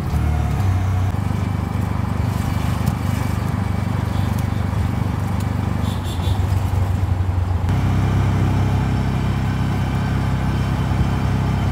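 Auto-rickshaw (tuk-tuk) engine running steadily as it drives along a road, with road and wind noise from inside the open cabin; the engine gets louder about eight seconds in.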